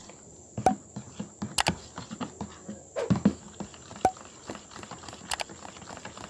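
A utensil stirring slime mixture in a plastic tub, scraping and tapping against the plastic in irregular clicks, a few of them louder.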